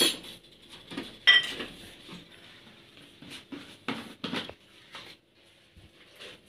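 Kitchen storage jars clinking and knocking against each other and their wire shelf rack as one is taken down: a handful of separate knocks, the sharpest a ringing clink about a second in.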